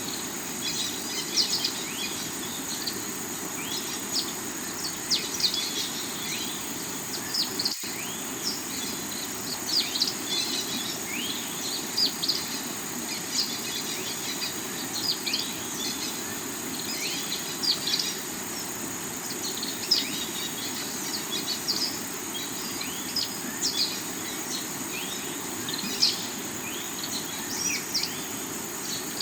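Layered forest-and-river soundscape: a river rushing over rocks under a steady high insect buzz and many quick bird chirps, with a brief dropout in the audio about eight seconds in.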